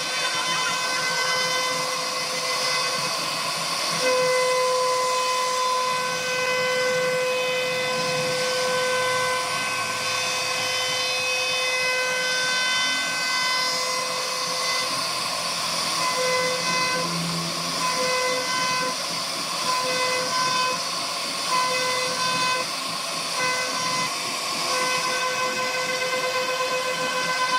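CNC router spindle whining at a steady high pitch over the hiss of the bit cutting wood. The tone is unbroken at first, then cuts in and out in short spells from about halfway.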